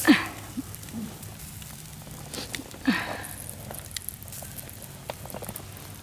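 Campfire crackling, with small scattered pops. A couple of short voice sounds come near the start and about three seconds in.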